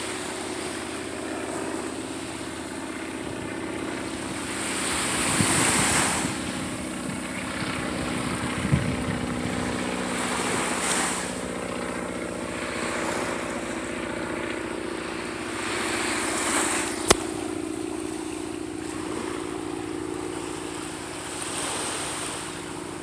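Small propeller plane droning steadily overhead, while surf washes up on the beach about every five seconds. There is one sharp click about three-quarters of the way through.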